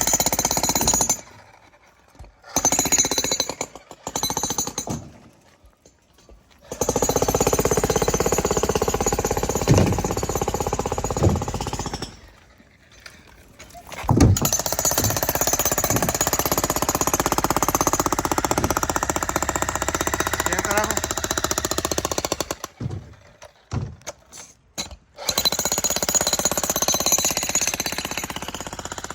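Concrete breaker hammering on sidewalk concrete to break it up: a rapid, continuous pounding that runs for several long stretches and pauses a few times in between.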